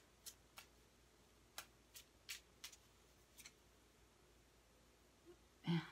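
Tarot cards being handled and drawn from the deck: a string of light, sharp clicks and snaps, about seven in the first three and a half seconds, as cards are slid and flicked.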